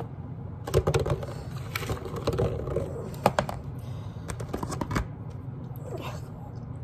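Close-up eating and handling noises: scattered clicks and crackles of a paper napkin and clear plastic takeout containers being handled, with chewing.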